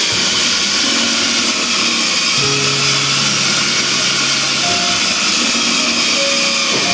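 A power tool running steadily with a loud hiss, under background music with held notes that change every second or two.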